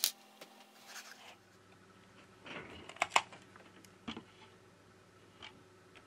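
Scattered light clicks and taps of small test gear being handled: multimeter probes lifted off the phone board, then a USB cable and inline USB power meter handled. The loudest is a pair of sharp clicks close together about three seconds in.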